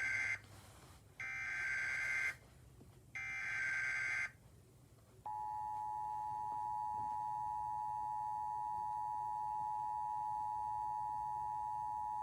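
Emergency Alert System SAME header: the tail of one burst of screeching digital data tones, then two more full bursts about a second apart. About five seconds in, the steady two-tone EAS attention signal starts and holds, announcing a severe thunderstorm warning.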